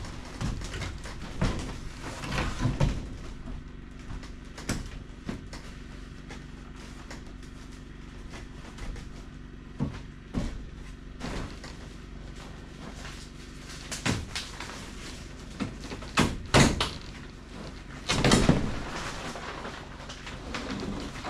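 Irregular knocks, thumps and scrapes of someone climbing about a wooden greenhouse frame and handling its clear plastic roof panels. The loudest, longest scrape comes about eighteen seconds in, over a steady low hum.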